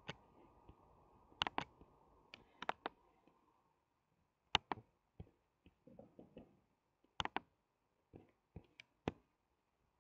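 Sharp, irregular clicks of a computer keyboard and mouse, several coming in quick pairs.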